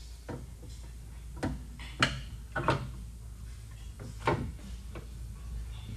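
A handful of sharp knocks and clinks as parts and hand tools are handled at a UTV engine's crank sensor and stator housing, the loudest about two seconds in, over a steady low hum.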